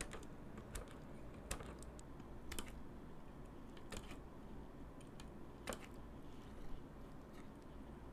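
Light, scattered clicks and taps, about one every second, from handling small metal parts (solder and the copper spot-welding rod) at a workbench, over faint steady room noise.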